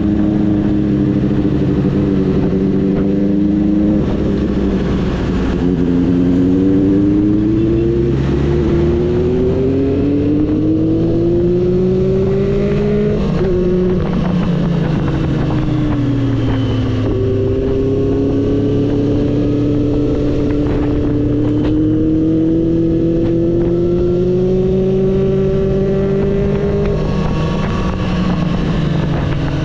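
Triumph Street Triple 765 RS's inline three-cylinder engine running as the bike is ridden. Its pitch climbs slowly under throttle, drops about halfway through, jumps back up and climbs again, then falls near the end.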